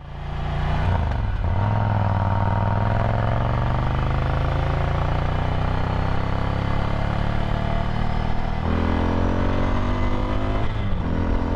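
Ducati Scrambler's air-cooled 803 cc L-twin running through a Termignoni exhaust while riding, its note climbing slowly under load, with brief breaks in the note about a second in and near the end.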